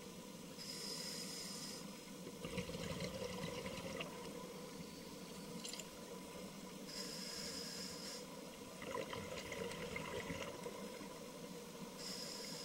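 Scuba breathing through a regulator underwater. Three inhalations, each a high hiss from the demand valve lasting about a second and a half, alternate with bubbling exhalations.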